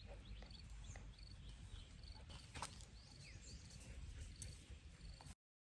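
Faint rural outdoor ambience: short high chirps and a few brief calls over a low background noise, with one click a little past halfway. It cuts off to silence about five seconds in.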